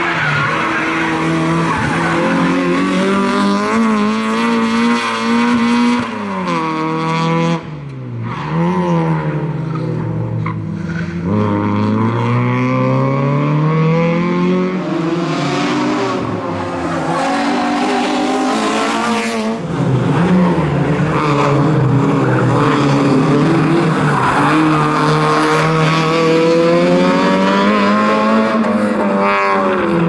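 Citroen Saxo rally car's engine revving hard, its pitch climbing and falling repeatedly as it accelerates, lifts off and changes gear, with tyres squealing through the tight turns of an asphalt sprint course.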